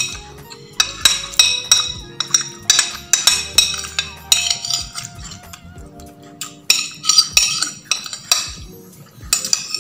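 Metal spoon scraping and clinking against a plate while food is scooped up: a quick run of sharp, ringing clinks.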